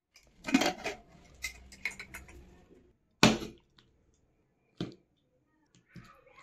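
Clatter and knocks of metal cookware being handled, an aluminium pressure cooker and serving dishes, with one sharp knock about three seconds in and another a little later. Near the end, a steel ladle scrapes and scoops thick mutton curry on a ceramic plate.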